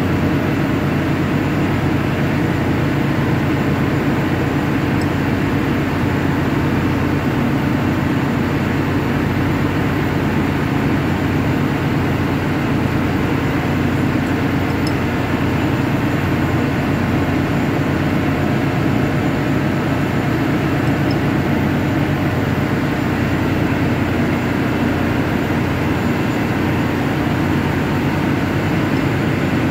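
Loud, steady machinery noise with a constant low hum that does not change throughout.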